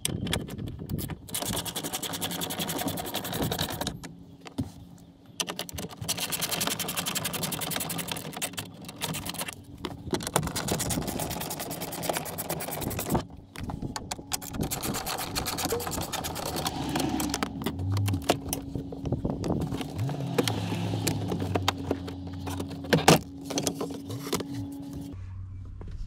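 Quarter-inch ratchet clicking in long, fast runs as 10mm bolts on a plastic lower dash panel are backed out. There is one sharp knock near the end.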